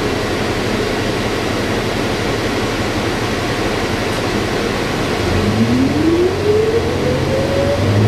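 New Flyer XD40 diesel bus heard from inside the cabin: a steady engine and ventilation hum. About five seconds in, the bus pulls away; the engine note grows stronger and a whine rises steadily in pitch as it accelerates.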